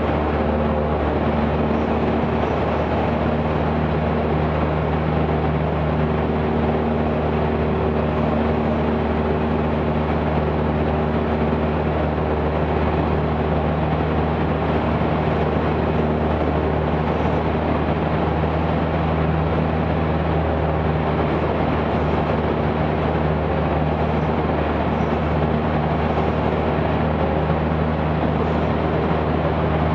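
Cessna 172's piston engine and propeller droning steadily in flight, heard from inside the cabin along with the rush of airflow. One tone in the drone drops slightly in pitch about three seconds in.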